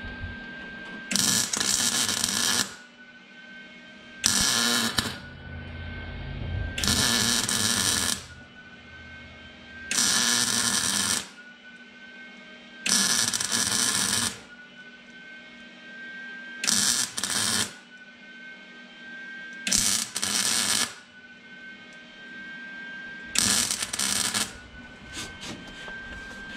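Lincoln Easy-MIG 140 MIG welder laying short stitch welds: about eight bursts of arc crackle, each a second or so long, with short pauses between. The metal is thin sheet that the arc tends to burn through even on a low heat setting.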